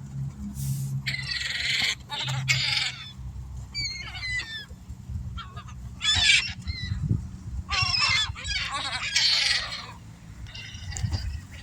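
A flock of seagulls calling, with harsh squawks in overlapping clusters from several birds. A low steady hum lies beneath for the first few seconds.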